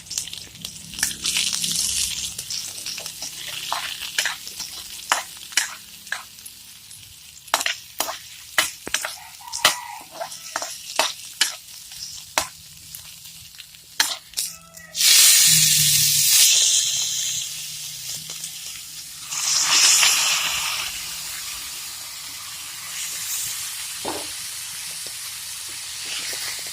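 Garlic, onion and ginger sautéing in hot cooking oil in a large pan, sizzling, while a spatula clicks and scrapes against the pan again and again. About fifteen seconds in the sizzle suddenly surges loud, surges again about five seconds later, then settles to a steady sizzle.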